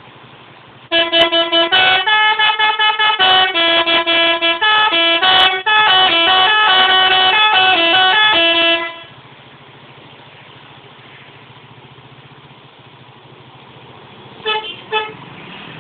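A bus's telolet horn, a multi-tone musical horn, plays a rapid tune of changing notes for about eight seconds. After it stops, the engine idles with a steady low hum, and two short horn toots come near the end.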